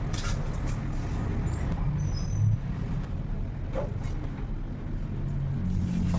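Motor vehicle engine noise: a steady low rumble with a hum that rises and falls slightly.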